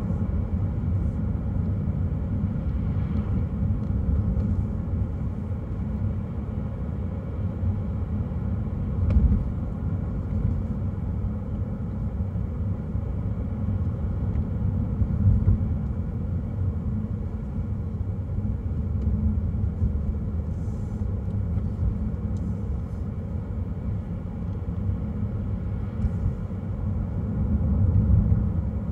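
Car driving on a village road: steady low rumble of tyres and engine, with short louder jolts about nine and fifteen seconds in and a swell near the end.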